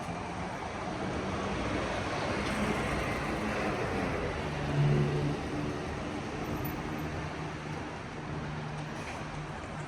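City road traffic: a motor vehicle passes close by, its engine hum and tyre noise swelling to a peak about five seconds in, then fading.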